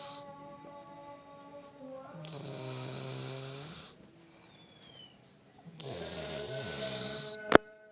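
Snoring: long drawn-out snores about every three seconds, two full ones here, with a sharp click near the end.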